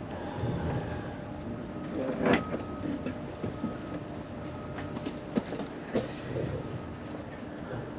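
Metal clinks and knocks from hand work on a car's engine-bay parts, with one louder knock a couple of seconds in and lighter clicks later, over a steady low mechanical hum.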